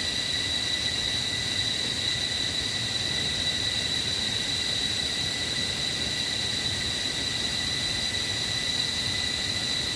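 Insect chorus droning at one steady high pitch over a constant hiss.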